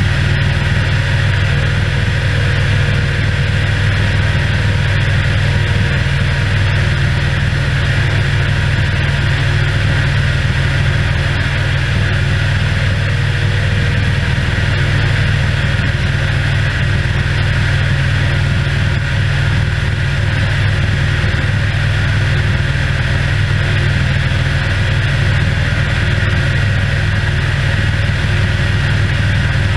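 Tractor engine running steadily while pulling an air-blast orchard sprayer, its fan blowing out spray mist: a constant low engine drone under a steady rush of air.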